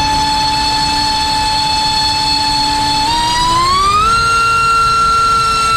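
LDpower 2305 2600kv brushless motor driving a Racecraft 5051 propeller on a thrust stand: a steady high whine that climbs in pitch about three seconds in as the throttle steps up, then holds at the higher pitch.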